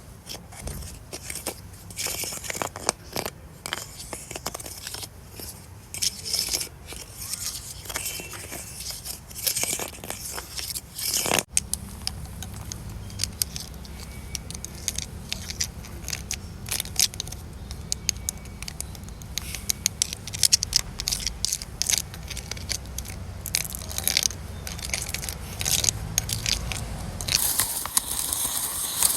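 Tree bark being scraped, a dense run of small crackles and scratches over a steady low hum, with a sudden change in texture about eleven seconds in.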